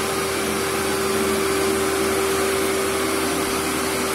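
Vacuum cleaner with a belt-driven brush running steadily on carpet: a steady rush of air with a constant motor whine over it.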